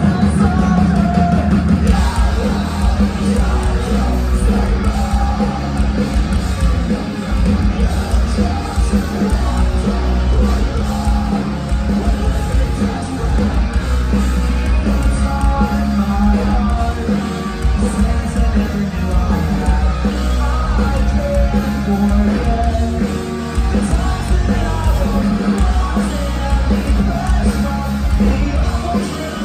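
Live rock band playing loudly through a venue PA, with a singer's vocals over heavy bass and drums, heard from within the crowd.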